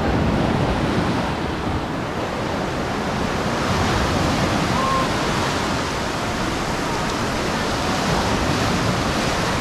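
Surf breaking and washing up a sandy beach: a steady rush that grows brighter and hissier about four seconds in.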